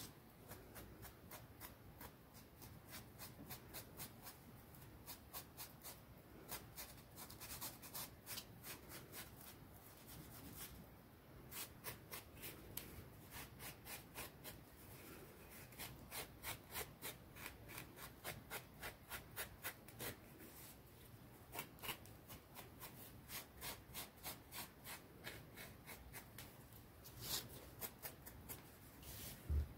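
A green abrasive pad sanding the edges of small white clay pieces, a pumpkin and a leaf-shaped dish. It makes faint, quick rubbing strokes, several a second, in runs with short pauses.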